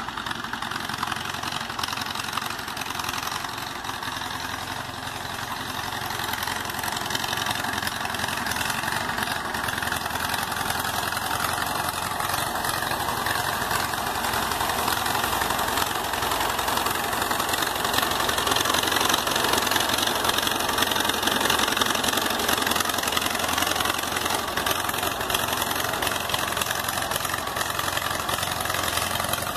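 Farmall C tractor's four-cylinder gasoline engine running steadily as the tractor is driven, growing louder a few seconds in. Its governor spring has just been fixed and valves adjusted, and the owner notes one valve still sticking.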